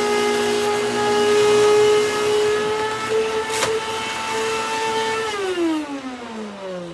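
Upright vacuum cleaner motor running with a steady high whine, with one sharp click a little after halfway. About five seconds in it is switched off and the whine glides steadily down in pitch as the motor spins down.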